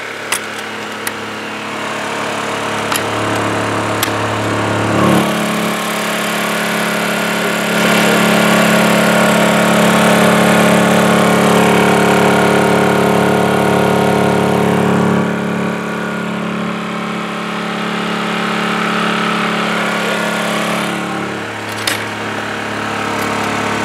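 Honda EU2000i inverter generator's small single-cylinder four-stroke engine running steadily inside a plywood quiet box. It gets louder about five seconds in as the lid is opened and drops back near the end as the lid closes, with a few sharp clicks from the lid's latches.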